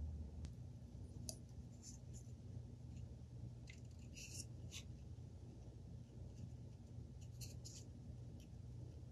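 Faint scratching, rustling and small clicks of hand work as a dowel is glued into a 3D-printed plastic part, over a low steady hum.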